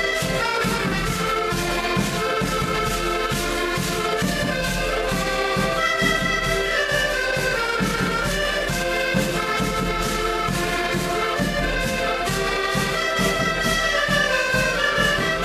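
Several button accordions playing a lively folk tune together, with a bass drum keeping a steady beat under it.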